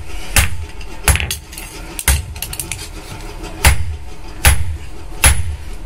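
Hammer striking metal on an anvil in blacksmith forging of a betel nut cutter knife: sharp ringing metallic blows, about one heavy strike a second with lighter taps between.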